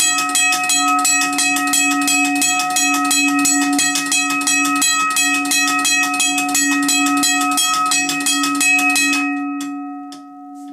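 A late-1930s US&S Teardrop railroad crossing bell, a 71.9-pound electromechanical bell, ringing with rapid, even hammer strikes over its sustained tone. About nine seconds in, the striking stops and the bell's tone rings on, fading away.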